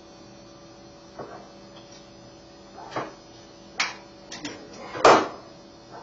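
Hand tools being handled on a workbench: a few scattered clicks and knocks, the loudest about five seconds in, over a faint steady hum.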